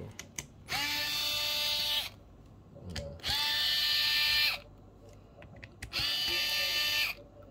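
A small electric screwdriver whines in three runs of about a second each, spinning up in pitch at the start of each run, as it backs out the tiny case screws of a mechanical keyboard.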